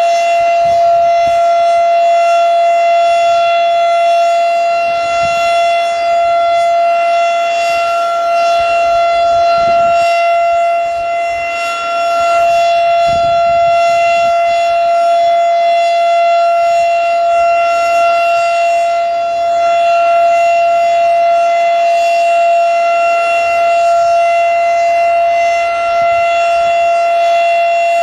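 A 1986 Federal Signal STH-10A rotating outdoor warning siren sounding its full-alert steady tone. The single held pitch stays constant, and its loudness dips slightly about every seven seconds as the rotating head turns. Wind gusts rumble on the microphone.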